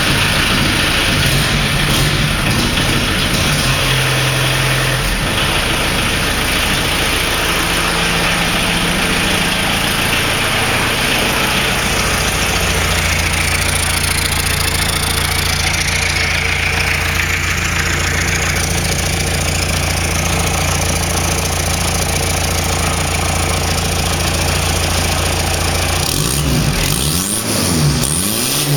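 Engine of a Sampander off-road vehicle running steadily, settling at a few different speeds. Near the end its pitch swoops up and down as it revs.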